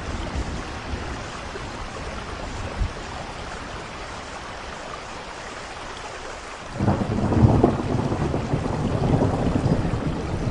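Steady rain falling, then a loud low roll of thunder that breaks in suddenly about two-thirds of the way through and keeps rumbling.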